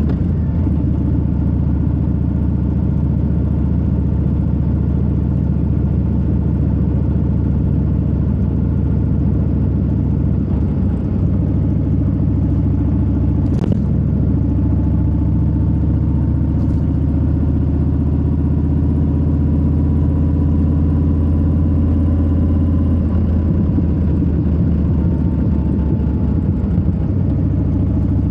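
2022 Harley-Davidson Low Rider S's Milwaukee-Eight 117 V-twin running at a steady cruise, the engine note rising and dipping only slightly. A single sharp click comes about halfway through.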